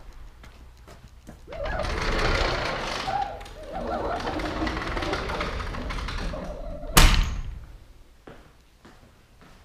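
An aluminium-framed glass sliding door rumbling along its track. It ends in a sharp bang about seven seconds in as it shuts against the frame.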